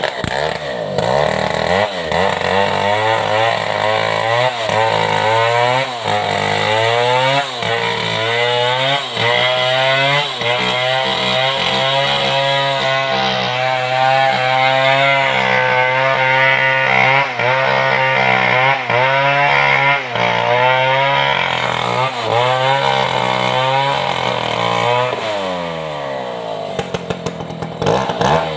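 Stihl 070, a large two-stroke chainsaw, run at full throttle while ripping lengthwise through a red sengon log. The engine note climbs at the start, wavers and dips repeatedly as the chain bites under load, then falls away over the last few seconds as the throttle is released.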